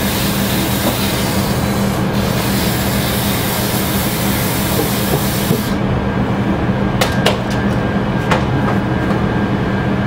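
Wood lathe motor running with a steady hum while 100-grit sandpaper is held against the spinning pen blank, a dense hiss that stops a little past halfway. A few sharp clicks follow after the sanding stops.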